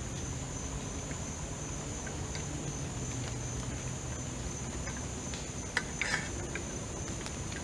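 Steady high-pitched insect chorus, with a few light clinks of eating utensils against an enamel plate about six seconds in.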